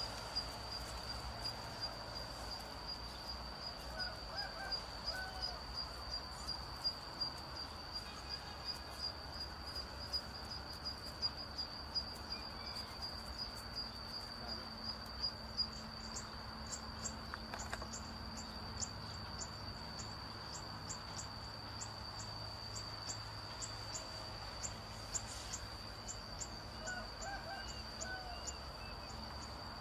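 Steady high-pitched insect trill, with a second insect chirping about twice a second from the middle on, and a few faint short calls around four seconds in and near the end.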